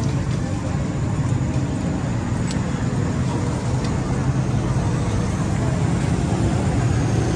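Steady street traffic noise, with a motorcycle rickshaw running close by.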